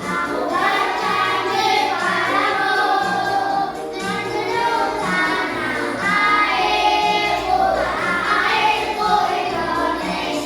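A group of children singing a song together over music with a steady beat.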